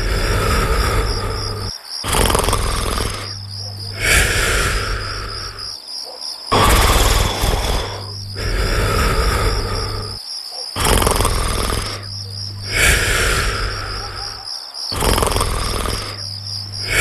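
A person snoring in slow, regular breaths, one about every two seconds, over continuous cricket chirping.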